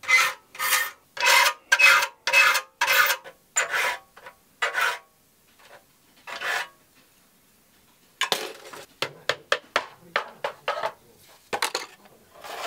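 Hand file scraping across the teeth of a Japanese ryoba saw, resharpening it because it had been cutting in a curve. There are about nine steady strokes, roughly two a second, then a pause, then shorter, lighter strokes after about eight seconds.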